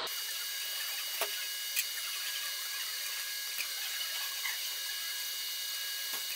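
A few faint, scattered metallic clicks from a clamp-type valve spring compressor and the valve keepers being lifted out with a magnet while an aluminium cylinder head's valves are dismantled, over a steady hiss.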